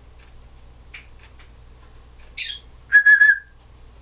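Timneh African grey parrot whistling: a short falling whistle about two and a half seconds in, then a louder steady whistled note held for about half a second.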